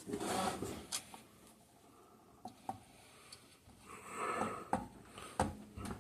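Handling noises from a small engine being shifted and turned over by hand: a short scrape at the start, a few light clicks, another brief scrape about four seconds in, and a dull knock near the end.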